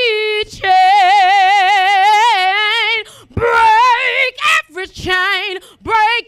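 A woman singing gospel solo and unaccompanied into a handheld microphone. She holds one long note with vibrato for over two seconds, then sings shorter phrases with brief pauses between them.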